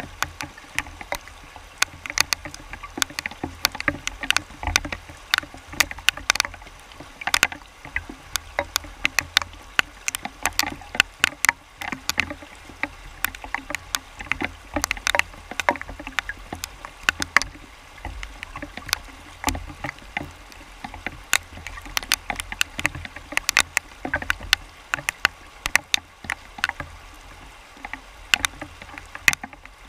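Fast river water rushing over rocks close to the microphone: a steady rush with a low rumble beneath, dotted all through with many sharp, irregular splashes.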